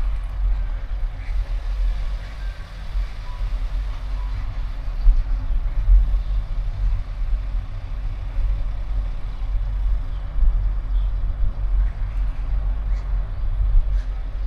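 Low, continuous rumble of a car driving: road and engine noise, wavering in level.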